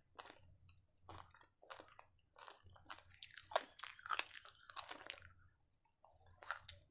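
A person chewing and biting crunchy food close to a clip-on microphone, from a chicken kebab meal: irregular crisp crunches, thickest a little past halfway, with a short pause before a few more near the end.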